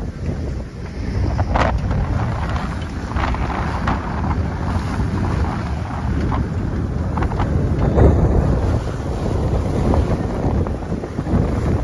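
Strong wind buffeting the microphone aboard a sailing boat under sail, with waves splashing against the hull now and then; the loudest gust or splash comes about eight seconds in.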